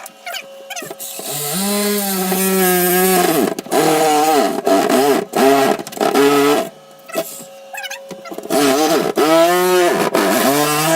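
Electric power saw cutting PVC pipe in three runs, its motor pitch sagging as the blade bites and rising again as it frees.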